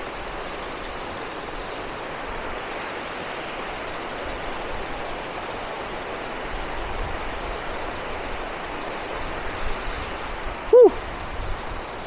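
Waterfall plunging onto rocks close by and the creek cascading below it, a steady, even rush of water. About a second before the end there is a brief voice-like sound.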